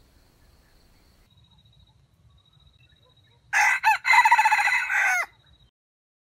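Red junglefowl rooster crowing once, about three and a half seconds in: a single short, loud crow of under two seconds with a brief break near its start.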